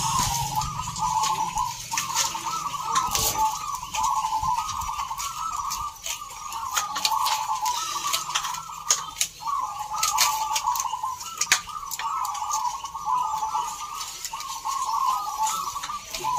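Zebra doves (perkutut) cooing, one short rolling phrase after another without a break, with sharp clicks scattered through.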